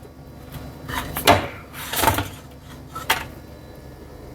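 Kitchenware being handled while serving: a few separate knocks and clatters, three of them louder, over a low steady hum.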